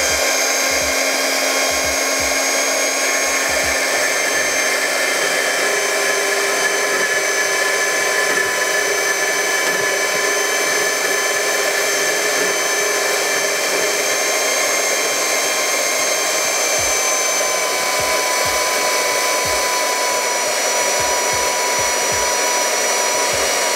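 Flex SBG 4910 portable band saw running steadily while its lubricated blade cuts a 45-degree mitre through a mild-steel angle profile: a constant whine of several fixed tones over the noise of the cut.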